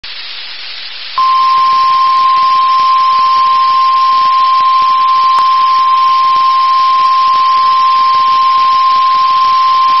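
NOAA Weather Radio 1050 Hz warning alarm tone: one steady, loud, unbroken tone starting about a second in and held for about nine seconds over constant radio hiss. It is the alert signal that precedes a warning broadcast, here a tornado warning.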